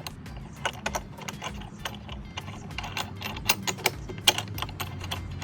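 Irregular sharp clicks and clinks of Rotopax lock-mount hardware being handled and fitted, over a low steady hum.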